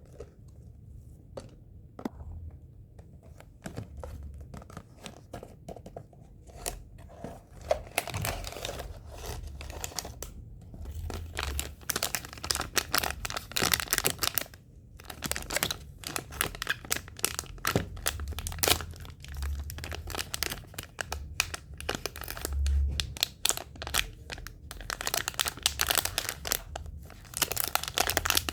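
Blind-box packaging crinkling and tearing as it is opened by hand. A few light taps at first, then dense, irregular crackling from about a quarter of the way in.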